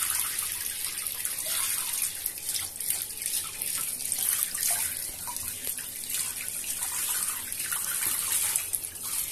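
Shower water running and splashing steadily over a wet cat's fur and down into a bathtub.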